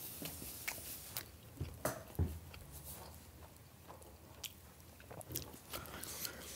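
A person chewing a mouthful of chicken tender, with scattered soft mouth clicks and smacks.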